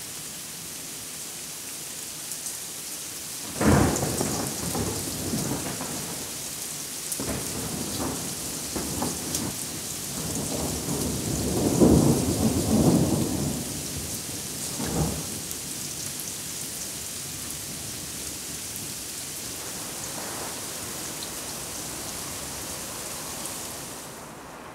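Heavy rain with thunder: a sharp thunderclap about three and a half seconds in, then rolling rumbles that peak around the middle. The rain hiss runs on steadily and fades out at the very end.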